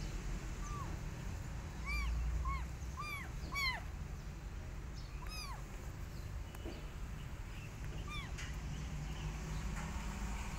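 Kitten meowing about seven times in short, high-pitched mews that rise and fall, most of them bunched in the first few seconds with a couple more spaced out later.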